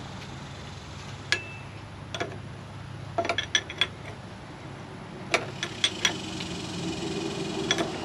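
Wrench and terminal hardware clinking as the nut and lock washer come off a battery cable stud on the tractor's starter solenoid, with the cable lugs being pulled off. The clinks are sharp and metallic and come singly, with a quick run of several a little past the middle.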